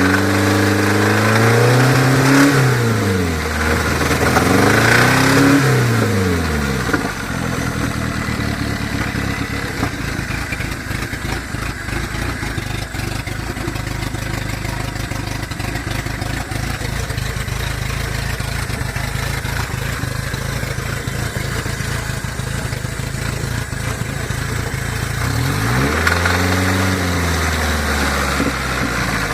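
Nissan KA24DE 2.4-litre four-cylinder engine, running through an open downpipe, revved up and back down twice, then idling, then revved once more near the end. The engine has a rod knock.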